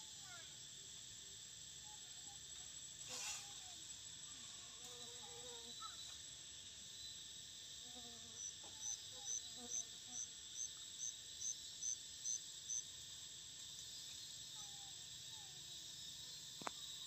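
Steady high-pitched insect chorus of crickets or cicadas. Around the middle, a run of about a dozen short high chirps comes at roughly three a second, with a brief noise about three seconds in and a sharp click near the end.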